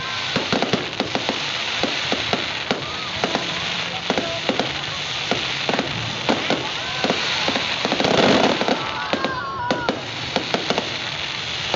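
Fireworks crackling and popping: a dense hiss of crackle with many sharp bangs scattered through it, and a louder swell about eight seconds in.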